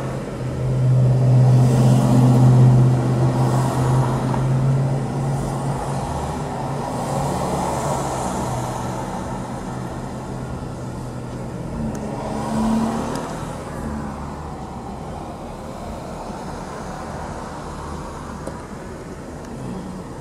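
Road traffic: vehicle engines running and passing, with a steady low engine drone that is loudest over the first five seconds and returns briefly about twelve seconds in.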